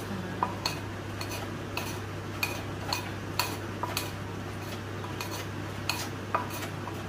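Wooden pestle pounding in a terracotta mortar while a metal spoon turns the contents, giving irregular sharp knocks and clinks, with a short pause about two-thirds of the way through.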